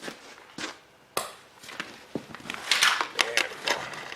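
Hand tools and metal parts clicking and knocking as the Honda EM3000 generator is taken apart, with a short scraping rattle about three seconds in.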